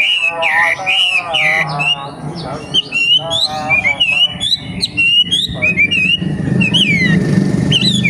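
A young wambi songbird singing: a rapid, varied run of loud sliding whistles and chattering notes, with quick up-and-down glides.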